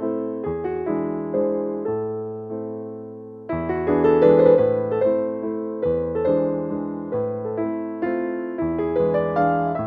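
Background piano music: gentle chords and melody notes, with one chord left to fade out about two seconds in before a new, louder phrase begins.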